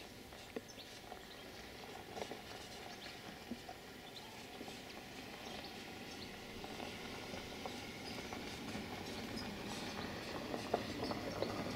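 Faint outdoor ambience with scattered small clicks and a few short chirps, growing slightly louder near the end.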